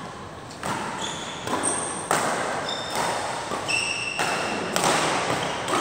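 Badminton rally: a quick series of sharp racket strikes on the shuttlecock and footfalls on the court, about one every half second. Short high squeaks ring out along with several of them, typical of shoes on the court surface.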